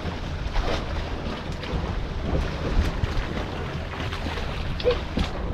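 Wind buffeting the microphone on a small fishing boat, over a steady low rumble and water against the hull, with a few light knocks.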